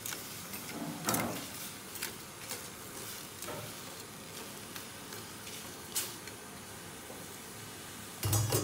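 Metal tongs knocking and scraping against an aluminium pot as whole prawns are stirred in it, a few separate clacks over a steady hiss. A louder thump comes near the end.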